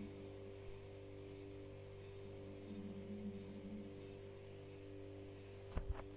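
A steady low electrical hum made of several held tones. Two short knocks sound near the end.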